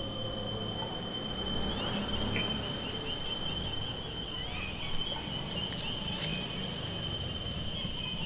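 A night insect trilling steadily on one high note, with low rumbling background noise and a few faint clicks about six seconds in.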